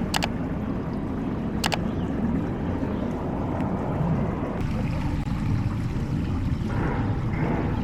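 Water flowing in a cascading hot-spring foot pool under a low, buffeting rumble of wind on the microphone, with two brief sharp clicks in the first two seconds.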